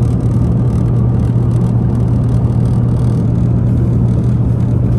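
Airbus A350 cabin noise in cruise: a steady rush of airflow and engine noise with a strong low hum underneath.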